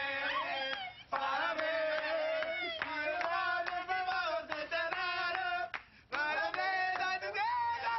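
A group of voices singing a birthday song in Portuguese, clapping along in a steady beat. The singing and clapping break off briefly about a second in and again just before six seconds.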